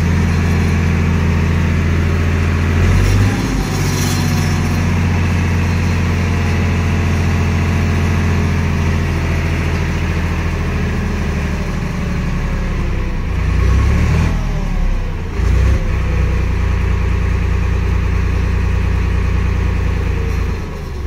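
Tractor diesel engine running steadily under raised revs, driving the hydraulic tipper that lifts a trailer bed loaded with sand. The engine note shifts about three seconds in and again around fourteen to fifteen seconds.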